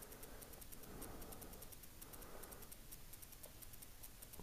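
Near silence: faint room tone, with a couple of faint small clicks near the end.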